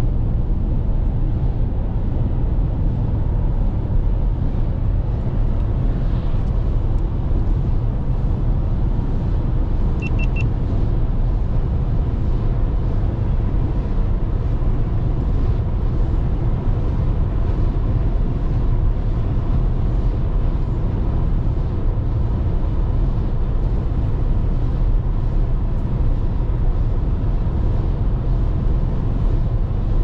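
Steady low road rumble of a moving car heard from inside the cabin, tyre and engine noise at highway speed. A brief high triple beep comes about ten seconds in.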